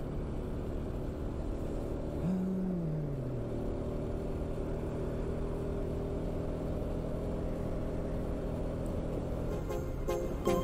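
Motorcycle engine running while riding, with steady road and wind noise. About two seconds in, the engine note falls for about a second as the revs drop off. Music starts just before the end.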